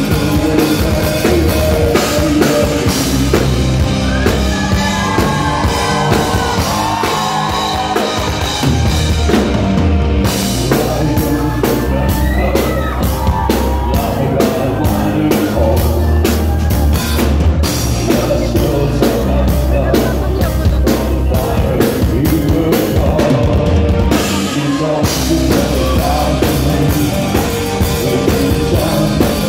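Live rock band playing: drum kit, electric guitars, bass and keyboards under a male lead vocal, heard from the audience. The band drops out briefly for about a second roughly three-quarters of the way through, then comes back in.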